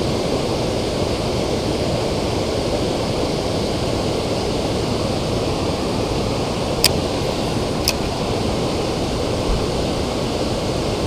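Steady rush of river water pouring below a dam spillway, with two short sharp clicks about seven and eight seconds in.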